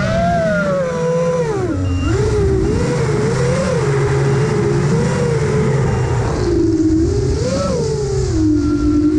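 Six-inch FPV quadcopter's brushless motors (3Bhobby 2306 2700KV) whining with propeller rush, the pitch constantly swinging up and down with the throttle and dropping low a couple of times.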